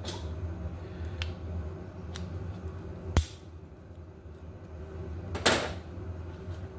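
Scattered clicks and knocks of hand tools and bicycle brake parts being handled while V-brakes are adjusted. There is a sharp click about three seconds in and a short, louder rasp near the end, over a low steady hum.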